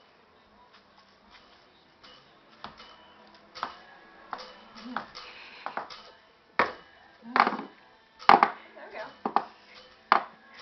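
Maracas shaken in short, irregular rattling strokes: sparse and faint at first, then louder and more frequent from about the middle.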